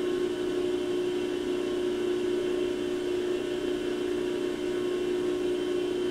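Steady hum of a running electric machine motor, an even mid-pitched drone that does not change.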